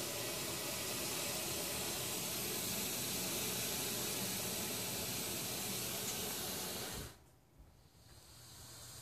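A 9-ft Colombian boa constrictor hissing: one long, steady exhaled hiss that cuts off suddenly about seven seconds in. The hiss is a defensive warning from an agitated snake.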